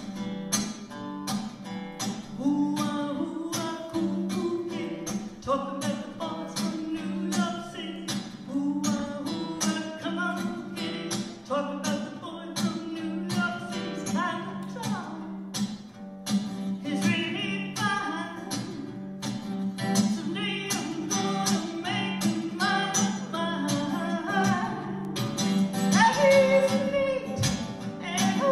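A woman singing to her own acoustic guitar, strummed in a steady rhythm.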